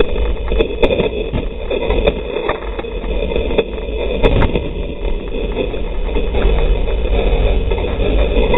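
Opel Corsa autocross car's engine running hard, heard from inside the bare, caged cabin, with frequent sharp knocks and rattles from the body and from dirt thrown against the car.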